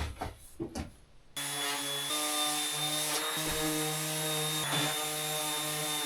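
Electric power sander switched on a little over a second in, its motor then running steadily with a high whine over a hiss as it sands dried plaster. A few light knocks come before it starts.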